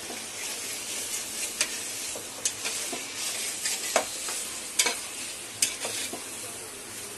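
Chicken pieces in masala sizzling in a stainless steel pot while a metal spatula stirs them. The spatula scrapes and knocks against the pot every second or so.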